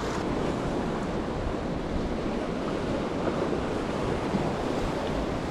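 Ocean surf washing in a steady, even rush, with wind buffeting the microphone.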